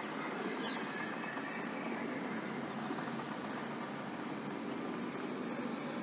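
Steady outdoor city background noise, a distant even hum, with no single sound standing out.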